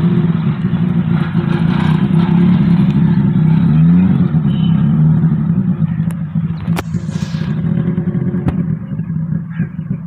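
1979 Suzuki Carry pickup's engine running, revving up briefly about four seconds in and then settling back to a steady note. There are two sharp clicks in the second half.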